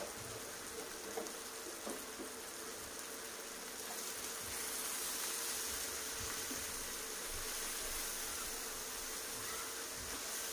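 Chopped vegetables and spices sizzling in hot oil in a non-stick frying pan, with a steady hiss that grows louder about four seconds in as a spoon stirs them.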